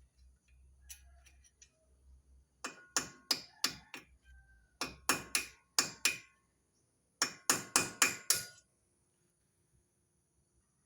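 A hammer striking metal in three quick runs of about five blows each, every blow ringing briefly.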